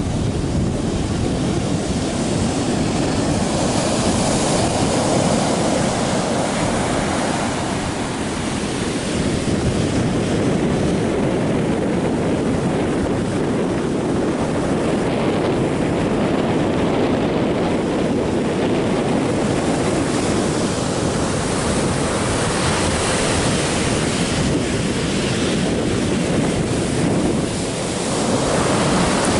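Sea surf breaking offshore and washing up a sandy beach: a steady rush of water that swells and eases gently as the waves come in.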